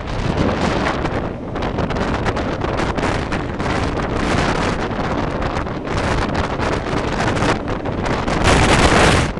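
Heavy wind buffeting the microphone of a camera held out into the slipstream of a moving train: a rough rushing noise that swells louder for about a second near the end.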